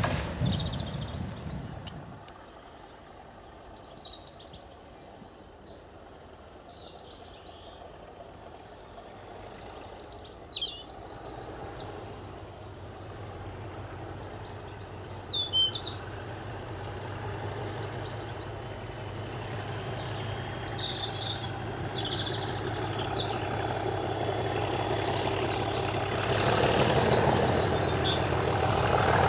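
A passing train fading away, then birds chirping. From about ten seconds in, the low, steady drone of a heritage diesel locomotive's engine grows gradually louder as it approaches.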